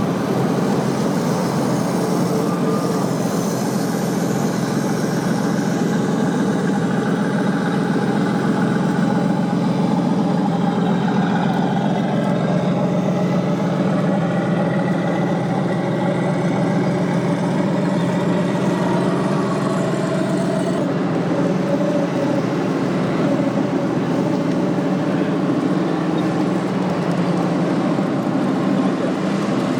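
Steady engine-like running sound from a 1/6-scale RC military vehicle, with slow rises and falls in pitch as it drives.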